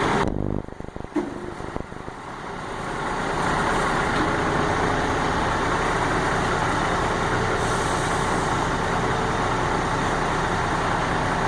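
A large truck engine running steadily. It drops away briefly near the start, then builds back up over a second or two and holds.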